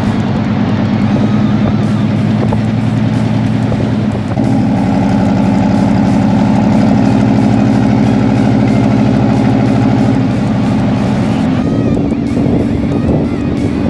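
1972 Chevy C20 pickup's engine running under way, its note changing about four seconds in and again near the end.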